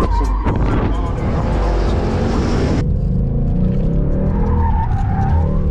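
Sports car engines revving hard with tyres squealing. The sound changes abruptly about three seconds in.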